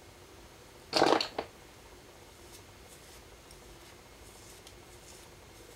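Fingers smoothing gelled hair at the nape of the neck: faint, soft rustles, with one brief louder noise about a second in.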